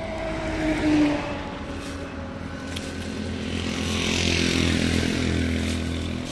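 Road traffic beside the highway: a vehicle engine running with a steady low hum, an engine note dropping in pitch about a second in, and road noise swelling louder about four to five seconds in as a vehicle passes.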